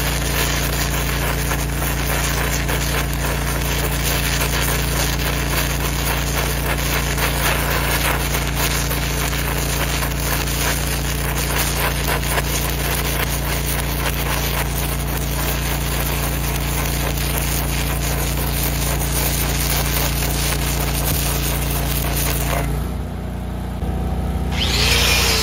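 An airless arc gouging rod (Rockmount Electra AAA, on DCEN) burning into steel, a steady crackling, sputtering arc, over the low drone of an engine-driven welder. The arc breaks off about 23 seconds in, leaving the welder's drone.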